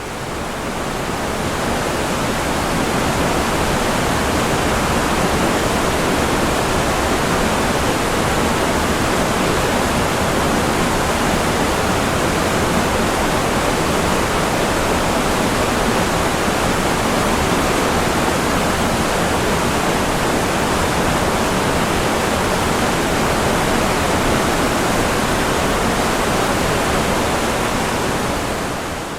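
Creek rapids pouring over a ledge in high spring snowmelt flow, at about five times its normal volume: a loud, steady rush of water that fades in at the start and fades out near the end.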